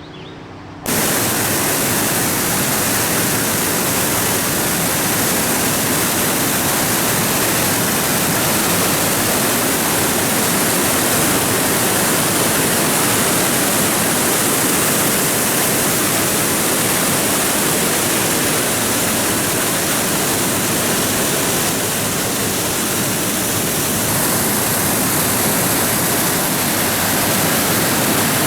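Steady, loud rushing of water pouring over Hog's Back Falls. It starts suddenly about a second in.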